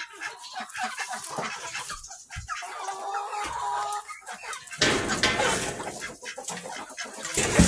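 Barnyard chickens clucking, with short pitched calls through the first few seconds. From about five seconds in, a steady rustling noise rises under the clucks, and a sharp knock comes right at the end.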